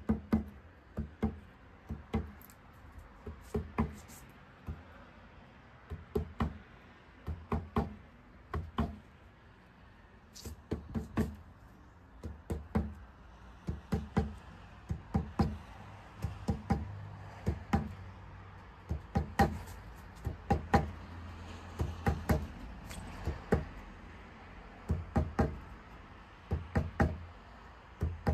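Hammer tapping a glued trim strip down into a groove in a wooden chair frame: repeated sharp knocks, often in quick groups of two to four, with short pauses between.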